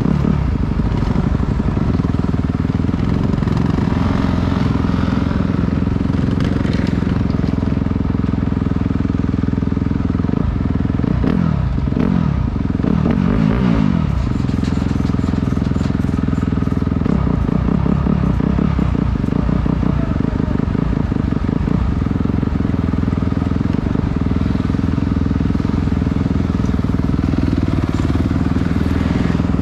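Dirt bike engine idling steadily, with the throttle blipped several times around the middle so the revs rise and fall.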